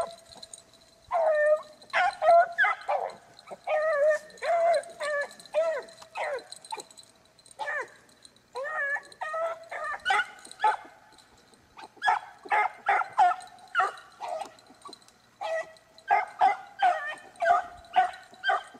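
Beagle hounds baying on a rabbit's trail: repeated drawn-out bawls and shorter chop barks, about two a second in runs broken by brief pauses, with more than one voice overlapping at times.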